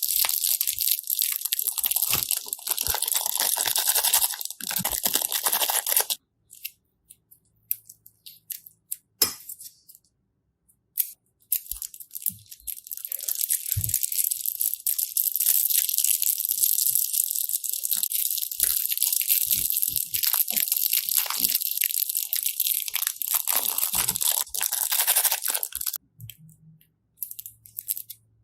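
Crunchy slime being squeezed and pressed by hand, giving a dense crackling. It crackles for about six seconds, then a gap of a few scattered clicks, then crackles again for a long stretch before tapering to a few pops near the end.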